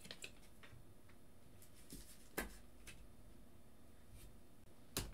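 Faint handling sounds of a trading card and a clear plastic card holder, with a few light clicks and taps. The sharpest click is about two and a half seconds in, and another comes near the end.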